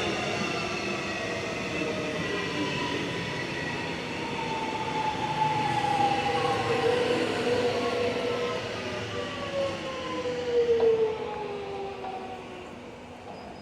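Suburban electric train at a station platform, its motors whining in several tones that fall slowly in pitch over a running rumble. The train sound fades near the end.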